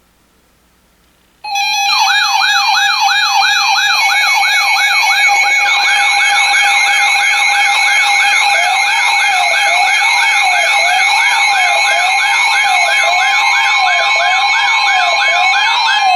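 Several electronic siren tones layered together, starting abruptly about a second and a half in. A fast yelp sweeps up and down about twice a second over a lower wavering wail and high-pitched warbling tones.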